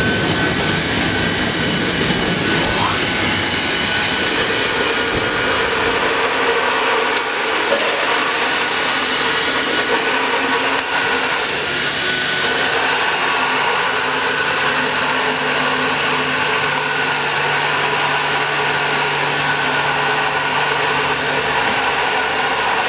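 Vacuum pump of a PVC membrane vacuum press running steadily, a loud even hiss with a faint whine, as the press pulls suction on the foil-covered cabinet door; a low hum joins about halfway through and drops out shortly before the end.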